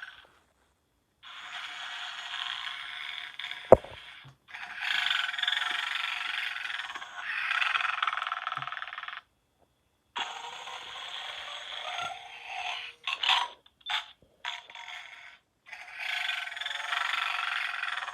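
Gemmy animated snoring Santa figure playing its recorded snoring through a small, tinny speaker. Long snores of a few seconds each come with short pauses between, then a run of shorter quick bursts about two-thirds through. There is one sharp click a little under four seconds in.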